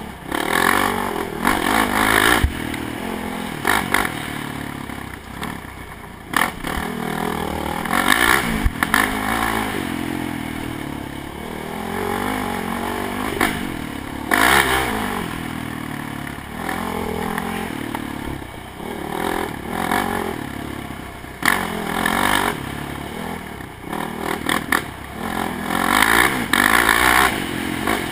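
ATV engine revving up and easing off again and again as it rides a rough dirt trail, with repeated bursts of clatter and scraping noise over the top.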